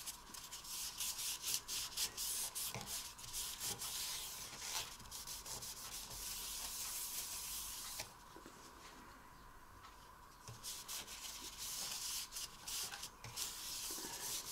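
Paper towel rubbing sanding sealer onto a turned wooden clock face in quick back-and-forth wiping strokes, which stop for about two seconds in the middle.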